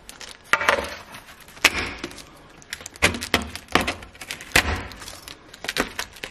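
A chef's knife chopping through set chocolate bark on parchment in a metal baking tray: a series of sharp cracks and knocks, about one a second, as the hard chocolate snaps into pieces.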